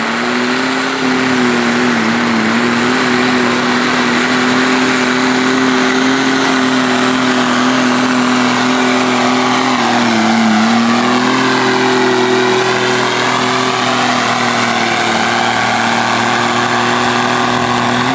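Diesel garden tractor engine running hard under load as it pulls a weight-transfer sled, its pitch holding steady with a brief sag about ten seconds in as it passes close by.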